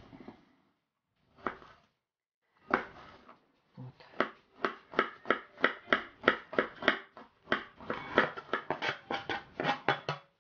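Kitchen knife chopping a garlic clove on a plastic cutting board. A couple of single knocks come first, then steady quick chopping at about three to four strokes a second.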